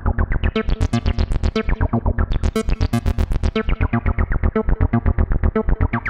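Access Virus TI synthesizer playing a sequenced bass pattern as a rapid, steady run of notes. Its filter cutoff and resonance are being turned by hand, so the tone opens up brighter around the middle and then closes down darker again.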